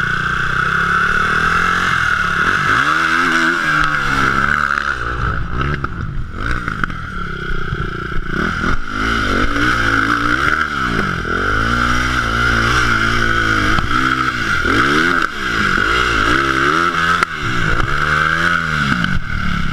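Four-stroke enduro motorcycle engines, one idling steadily while another is revved in repeated short throttle blips, each rising and falling in pitch.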